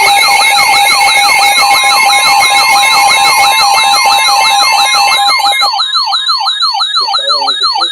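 Several electronic emergency-alert alarms sounding together: a siren-like falling whoop repeated about four times a second over a high warbling tone, with rapid steady-pitched beeping that stops about three-quarters of the way through.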